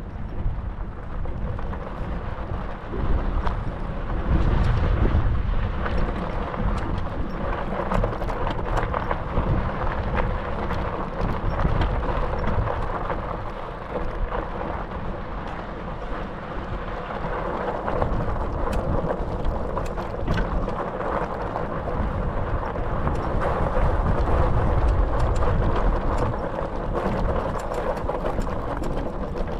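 Wind buffeting the microphone on a moving bicycle: a steady low rumble with many scattered clicks and crackles, swelling louder at times.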